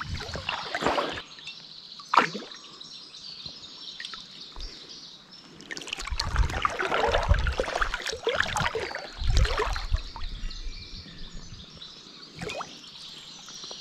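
Water splashing and trickling as a hooked trout is played at the surface close to the angler, with a few dull low rumbles in the middle.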